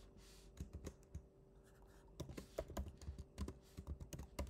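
Typing on a computer keyboard, faint: a few scattered keystrokes, then a quicker run of key clicks from about halfway in.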